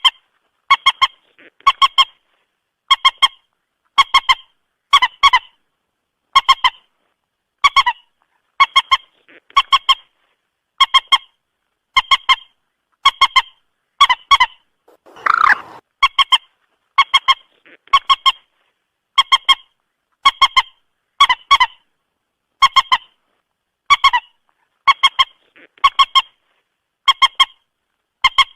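Moorhen calling: short, clipped pitched notes repeating about once a second, with one longer, lower call about halfway through.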